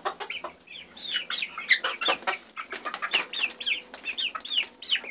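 Chickens clucking close by: a busy run of short, high, overlapping clucks, several a second.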